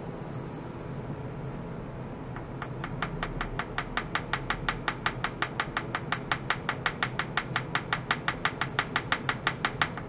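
Small wooden mallet tapping rapidly on a stainless steel tray, about five even taps a second. The taps start about two and a half seconds in and grow louder, over a steady low hum.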